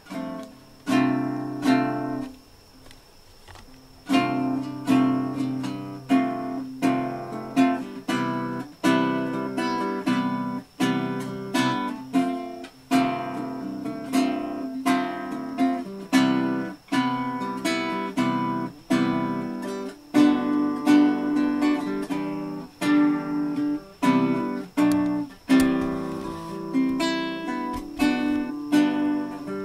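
Guitar being strummed in chords, about one stroke a second, with a short break about two seconds in before the strumming starts again.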